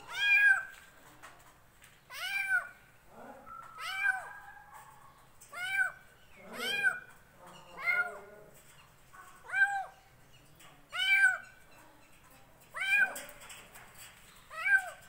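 A kitten meowing over and over, about ten high calls roughly a second and a half apart, each rising and then falling in pitch.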